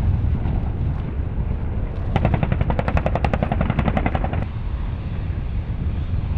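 AH-1 Cobra attack helicopter in flight: a steady low rumble, with a rapid, evenly spaced run of sharp pulses, about nine a second, from about two seconds in to about four and a half seconds.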